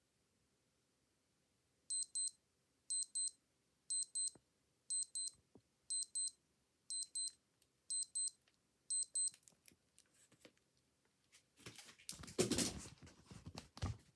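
Old digital watch alarm beeping: eight high-pitched double beeps, one pair a second, then the beeping stops. Near the end, a louder burst of rustling noise.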